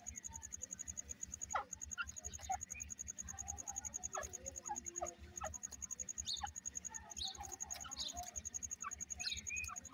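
Grey francolins giving soft, short chirps and peeps, scattered irregularly, over a steady high whine.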